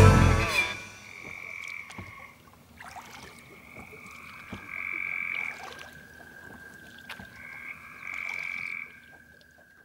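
Electric guitar music cuts off in the first second. Then frogs call in long, steady notes at two pitches, overlapping and coming and going, with a few faint clicks.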